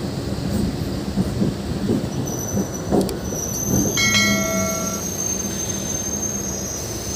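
MEMU electric train running along a station platform, wheels rumbling and knocking over the rail joints. About three seconds in, a high steady wheel squeal sets in and holds, with a brief tone of about a second near the middle.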